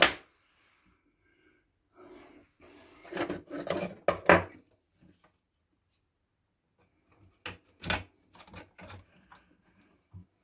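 Sharp knocks, clicks and scraping of hard parts being handled and set down during a kettle repair, with a busy stretch of scraping and knocks about two to four seconds in and another sharp knock about eight seconds in.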